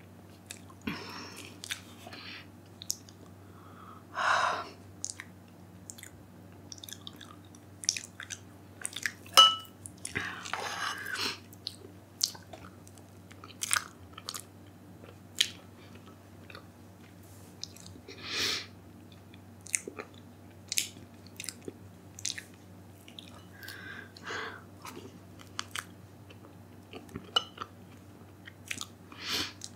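Close-miked eating sounds: wet mouth clicks and smacks as a soft, creamy white food is eaten by the spoonful. A metal spoon clinks once against the ceramic mug about nine seconds in.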